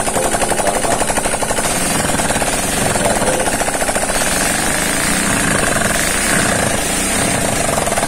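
Yamaha Mio Sporty scooter's single-cylinder four-stroke engine running with a steady, rapid metallic clatter. The knock comes from a loose connecting rod and a damaged piston worn from running without oil, left unrepaired.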